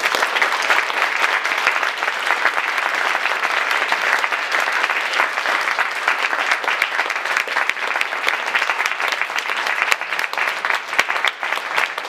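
Audience applauding, many hands clapping in a dense, steady patter.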